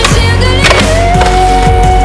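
Loud background music with a long held lead note, over which a skateboard clacks as it lands, with a sharp knock about two-thirds of a second in.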